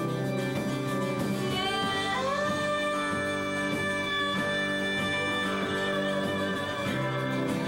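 A live band playing, with a woman singing lead: her voice slides up about two seconds in and holds one long note over guitar and band accompaniment.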